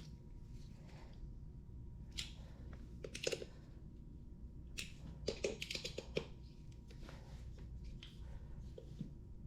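Scattered small clicks and clinks of hand tools and metal parts being handled while screws on an electric scooter wheel are tightened, with a denser run of clicks about halfway through, over a low steady hum.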